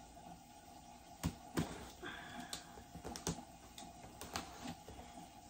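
Fingers picking at the plastic shrink wrap on a cardboard box: a handful of sharp crackles and taps, spaced irregularly through the middle, over a faint steady hum.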